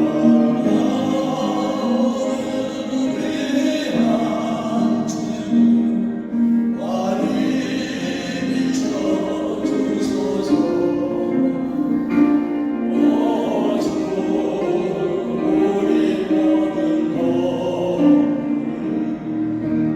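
A choir singing a Korean gospel praise song in long held notes.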